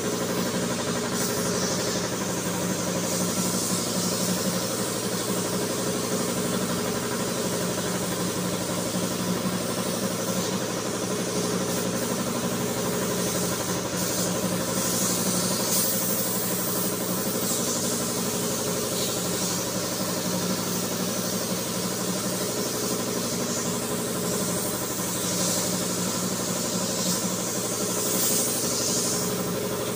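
Air compressor running steadily, a constant mechanical hum, with a hiss of compressed air that swells and fades a few times.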